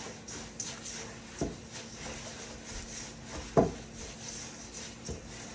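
Hands mixing a wet kosher-salt paste in a stainless steel bowl: a soft gritty rubbing, with two dull knocks, the second and louder one about three and a half seconds in.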